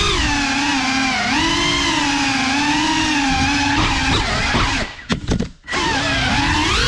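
Motors and ducted propellers of a GEPRC CineLog35 cinewhoop FPV drone whining, the pitch rising and falling with the throttle. About five seconds in the motors cut out for under a second, with a few short clicks, then spin back up.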